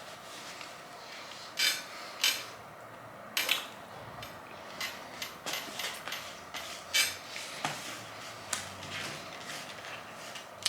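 Irregular sharp clicks and clatters of tableware and food containers being handled on a table, with a few louder knocks.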